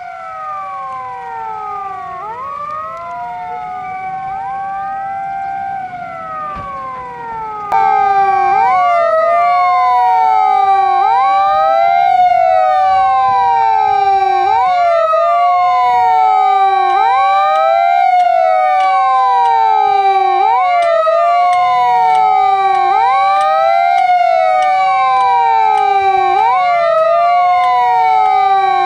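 Several fire-engine sirens sounding together, out of step. Each holds a steady tone, then falls in pitch and jumps back up, about every two seconds. The sound gets suddenly louder about eight seconds in.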